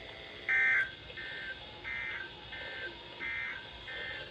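NOAA Weather Radio's Emergency Alert System end-of-message signal: three short bursts of warbling two-tone digital data, each about 1.3 s after the last. Each burst is followed about 0.7 s later by a fainter repeat. The first burst is the loudest.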